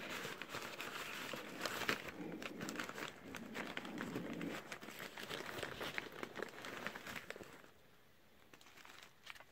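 Newspaper packing crumpling and crinkling as hands dig through it and ease a wrapped plant out of a cardboard box, with many small crackles. The rustling dies away about two seconds before the end.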